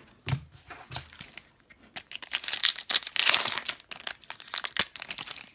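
Wrapper of an Upper Deck Series 1 hockey card pack being torn open and crinkled by hand. A few light knocks come first; the crackling starts about two seconds in and is loudest in the middle.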